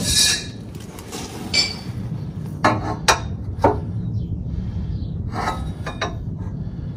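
Steel bar clinking and knocking against the truck's frame bracket as it is held up and fitted by hand: a handful of separate sharp metal clicks, most of them about three seconds in, over a steady low hum.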